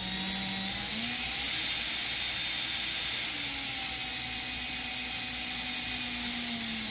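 Electric drill spinning a speedometer cable to drive a rebuilt speedometer on the bench, a steady motor whine with hiss. It rises in pitch in the first second, holds, and drops slightly near the end as the speed is eased off.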